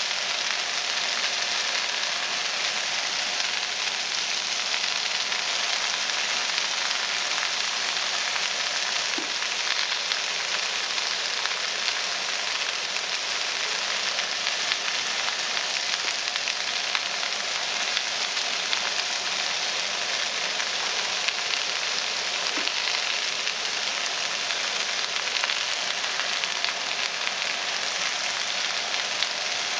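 Shredded cabbage and carrots frying in a nonstick pan on high heat: a steady, even sizzle.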